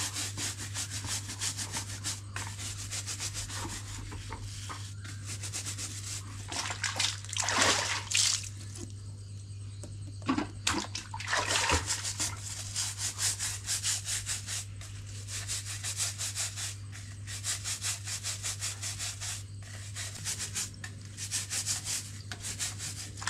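A plastic bristle brush scrubbing the bumpy rind of large citron fruits in quick, repeated rasping strokes. Water splashes loudly twice, about a third of the way in and again near the middle, over a steady low hum.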